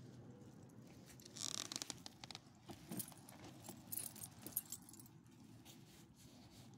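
Small metal pieces jingling and clinking, from the dogs' leash clips and collar hardware, in a few brief clusters between about one and a half and four and a half seconds in, over faint handling rustle.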